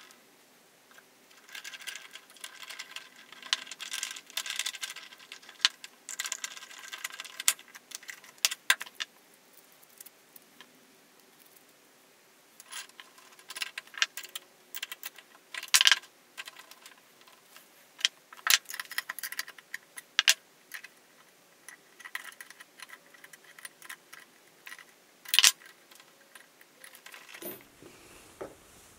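Combination wrenches, bolts and aluminium plates clinking and knocking on a workbench as the pieces are handled and set down, in irregular bursts with quiet gaps and a few sharp single knocks.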